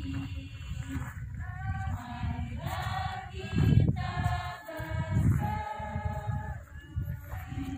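A large crowd singing together, with long held notes, and gusts of wind buffeting the microphone with a low rumble.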